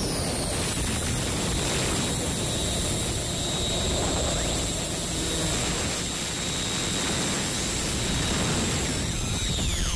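Harsh noise music: a loud, dense wall of static across the whole range, with thin high whistling tones that hold steady and then slide down in pitch near the end.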